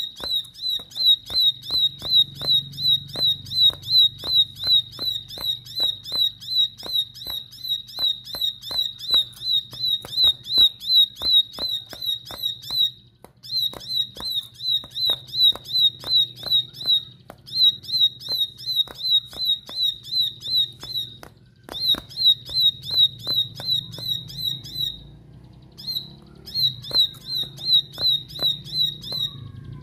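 A caged plain prinia (ciblek sawah) calling an insistent run of sharp, clicking notes, between two and three a second. The runs go on for several seconds at a time with brief pauses between them.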